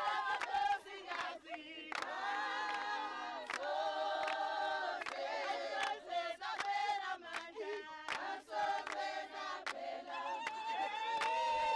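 A group of women singing together, with hand claps keeping a steady beat.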